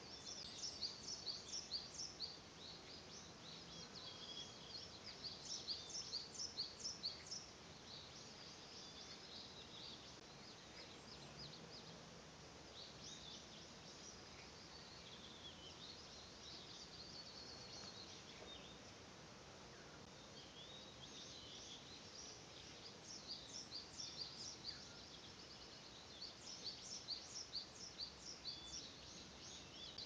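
Small songbirds singing in woodland: high, quick runs of short repeated notes come in bursts at the start, around five to seven seconds in, and again through the last several seconds, over a faint steady hiss.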